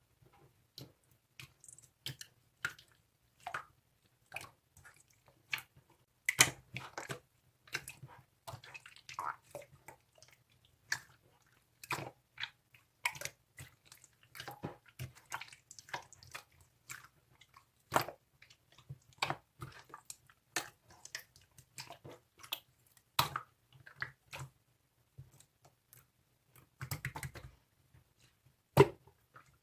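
Close-up wet, squishy clicks and smacks, irregular and coming several times a second, over a faint low hum.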